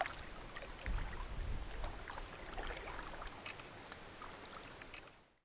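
Faint handling noise aboard a kayak: scattered light clicks and knocks over a steady high hiss, with a low rumble for about two seconds starting a second in. The sound fades out abruptly just before the end.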